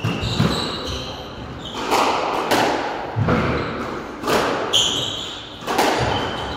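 Squash rally: the ball cracks off the rackets and the walls about once a second, each hit echoing around the court, with short squeaks of court shoes on the wooden floor between hits.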